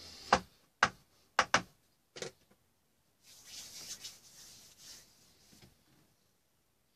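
Five sharp knocks or taps in the first couple of seconds, then a rubbing scrape lasting about two seconds, from painting tools working on the painting surface.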